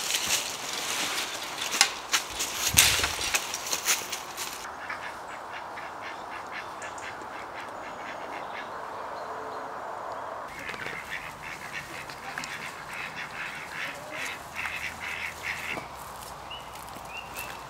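Knocks and rattles at a wooden field gate in the first few seconds, then footsteps crunching on leaves and gravel from about ten seconds in, with quacking birds.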